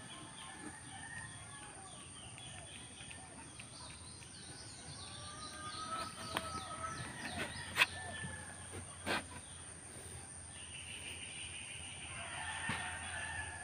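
Background birds calling: many short chirps throughout, a longer call around the middle and a busier stretch of calls near the end. A few sharp clicks sound midway.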